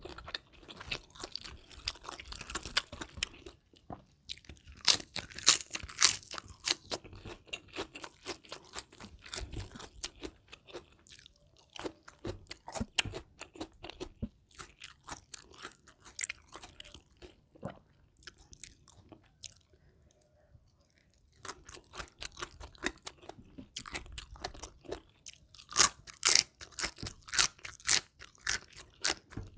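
Close-miked eating: repeated sharp crunches and chewing of crisp food, irregular and dense, with a short pause in the middle.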